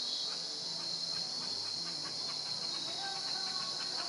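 Steady, high-pitched chorus of insects, unbroken and even in level throughout.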